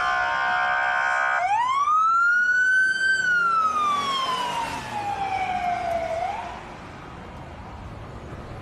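Police car siren sounding one wail: the pitch rises quickly, then falls slowly over about three seconds, with a quick upturn at the bottom before it fades. It takes over about a second and a half in, when a steady many-toned sound cuts off.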